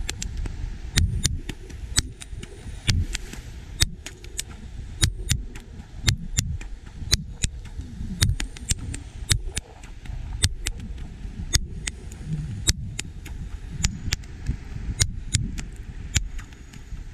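Two sport whips, one in each hand, cracked over and over in a continuous two-handed routine: a long run of sharp cracks, roughly one or two a second.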